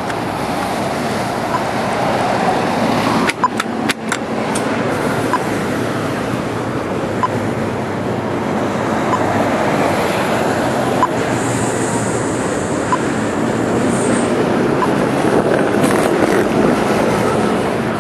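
Busy city street ambience: steady traffic noise with voices of passers-by. A few sharp knocks come about three to four seconds in, and a thin high squeal sounds for about three seconds starting some eleven seconds in.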